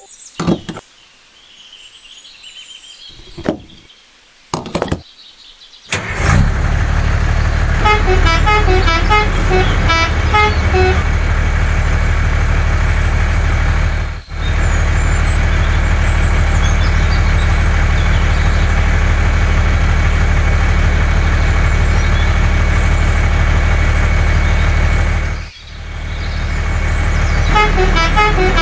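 A few short knocks, then a truck engine starts running steadily, with a musical horn playing a short tune about eight seconds in and again near the end.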